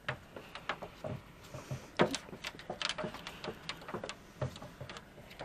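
Irregular clicks, taps and rustles of handling, as blankets are shifted about inside a plastic pet carrier.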